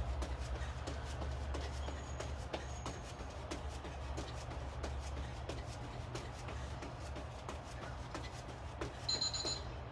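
Quick footfalls and light thumps of feet on the floor during fast high-intensity drills, over a steady low hum. Near the end an electronic interval timer starts beeping, signalling the end of the work interval.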